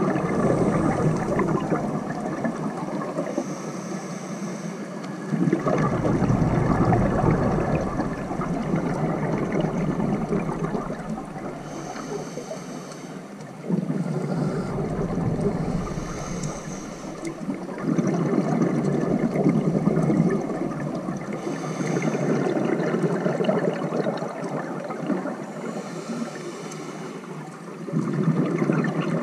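Scuba diver's breathing through a regulator, heard through the camera's underwater housing: a gurgling rush of exhaled bubbles every few seconds, with a fainter hiss of each inhalation between them.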